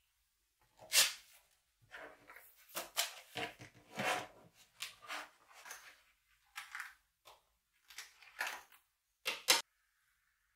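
Stationery handled on a desk: a leather pen case being opened and its contents set out. Irregular taps, clicks and rustles, with sharp clicks about a second in and near the end.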